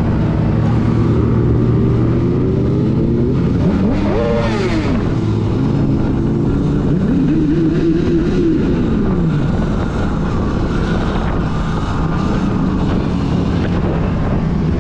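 Wind rushing over the microphone while riding, with motor-vehicle engines running alongside. Their pitch climbs and falls a few times as they rev up and ease off.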